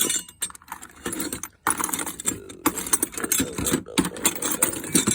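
Irregular metallic clinking and clattering of tools and engine parts being handled, with the sound cutting out briefly several times.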